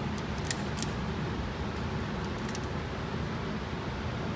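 Steady low hum and hiss of background room noise, with a few faint, sharp high clicks.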